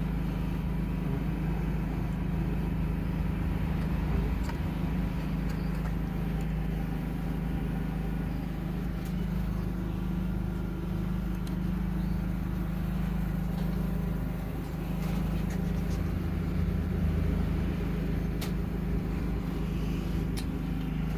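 A motor running steadily nearby, a constant low hum. A few light clicks come from handling intake manifold gaskets on a bare engine block.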